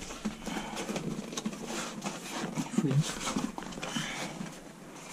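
Thick 40 mil PVC shower pan liner rustling and crinkling as it is folded and tucked against the side of a plastic water tank, with irregular light taps and knocks, the loudest a little before halfway.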